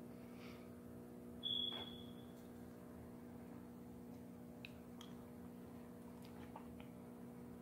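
Steady low hum, with one short, high, flat beep about one and a half seconds in and a few faint ticks later on.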